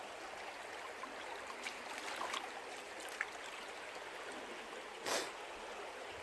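Steady rushing of a flowing stream, with a few faint small splashes or ticks. About five seconds in there is one short, louder burst of noise.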